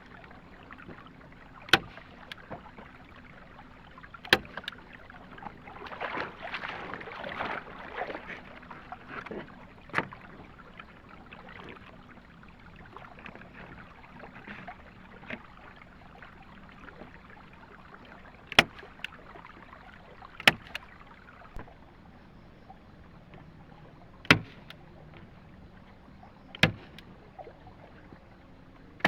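Sharp knocks at irregular intervals of a few seconds over a low steady noise, with a louder stretch of noise about six seconds in.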